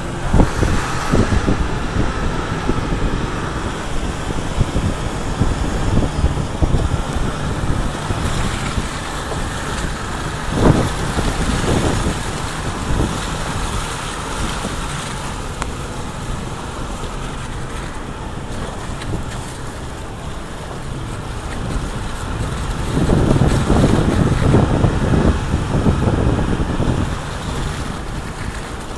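Vehicle driving over a rough, snow-covered dirt road, heard from inside the cab: a steady rumble of engine and tyres with bumps and jolts, louder for a few seconds near the end.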